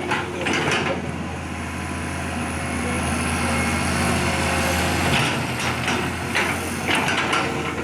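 Excavator's diesel engine running steadily, with short sharper sounds near the start and again later on.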